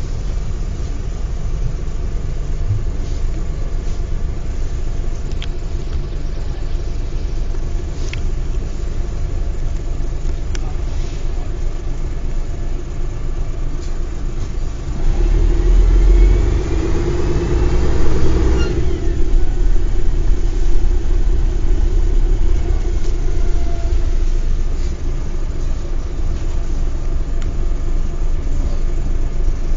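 Mercedes-Benz O405 bus diesel engine running with a steady low rumble. About halfway through it grows louder with a rising whine as the bus accelerates, then settles after a few seconds.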